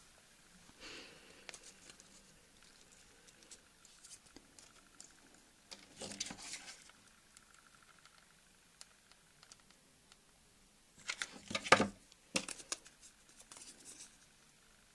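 Hands handling and pressing foamiran (thin foam) petals on a flower while gluing them on: faint rustles and small clicks, with louder bursts of handling about six seconds in and again around eleven to twelve seconds.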